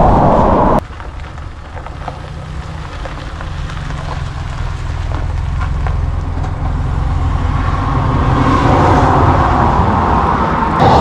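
Low, steady rumble of wind on the microphone while riding a bicycle. It drops suddenly about a second in, then grows gradually louder.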